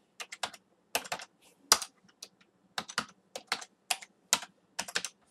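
Computer keyboard typing: irregular runs of sharp key clicks with short pauses between them, as a password is keyed in and entered at a terminal prompt.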